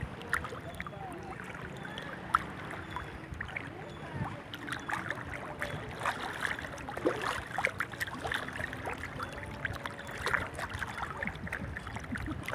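Shallow seawater sloshing and splashing around legs wading through it, with many small, irregular splashes.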